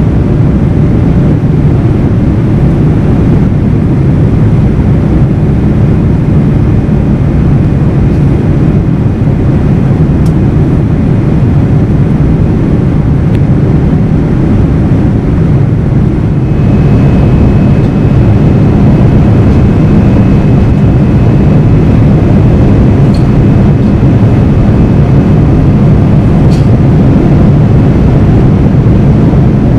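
Steady jet engine and airflow noise in the cabin of a Boeing 787-9 in flight, heard from a window seat beside its GEnx-1B turbofan. About 16 seconds in the sound changes abruptly to a slightly louder take carrying a faint high whine.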